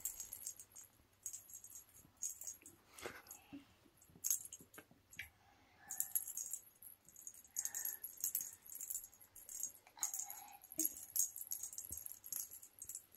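A small bell jingling in short, irregular bursts with pauses between them as two kittens bat at and chase a wand toy on a string.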